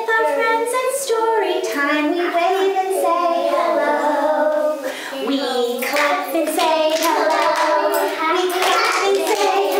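A woman and young children singing a song together, with a few hand claps.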